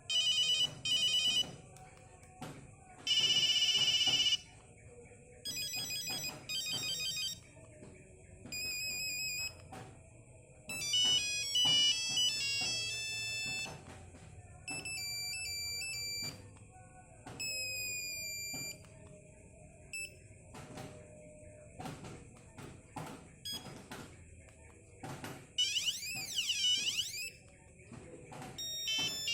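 Nokia 5110 mobile phone ringtones, high monophonic beeping melodies played in short snippets one after another, each a second or a few seconds long with brief pauses between. There are short clicks in the gaps, and near the end one tone warbles up and down.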